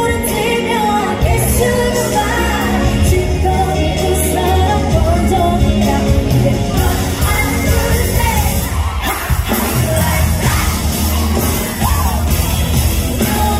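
A female singer sings live into a handheld microphone over a loud pop backing track with a heavy, steady bass beat.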